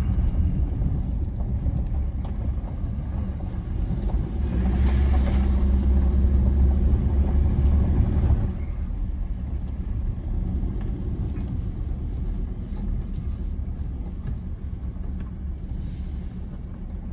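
Ford Ranger PX3 4x4 driving on a gravel dirt road: a steady low rumble of engine and tyres, louder for about four seconds midway, then dropping off.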